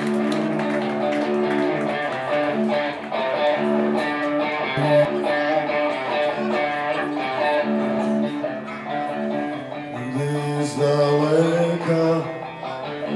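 Live rock band playing an instrumental intro: an electric guitar riff over a drum kit, with the cymbals growing busier near the end.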